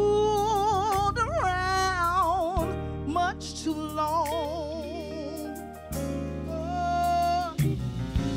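A woman singing a gospel song into a microphone, holding long notes with a wide, even vibrato and sliding between pitches, over backing music with a steady bass. Her voice stops near the end while the accompaniment carries on.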